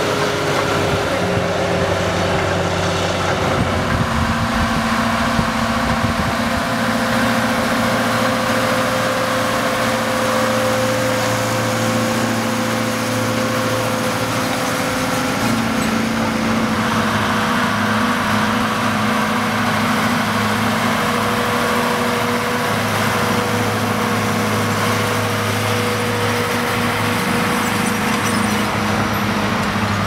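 Schlüter tractors' diesel engines working steadily under load, pulling soil cultivation implements through the field. The engine note shifts about four seconds in, and a different tractor is heard from about halfway through.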